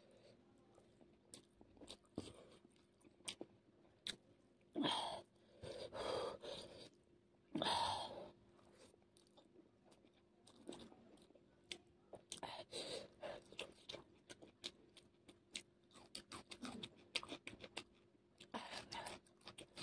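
Close-miked eating: a person chewing a mouthful of masala instant noodles, eaten by hand, with wet mouth clicks and smacks. There are a few louder slurping sounds about five to eight seconds in, then quicker chewing clicks through the second half.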